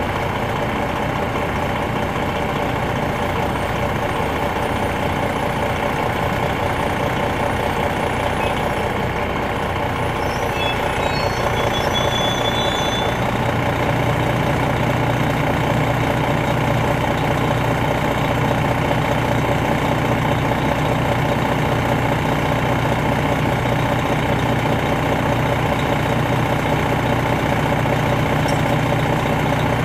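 Detroit Diesel Series 60 engine of a 2001 MCI D4000 coach running, heard from inside the bus. About halfway through, the engine gets louder and its low note strengthens, and it stays there to the end.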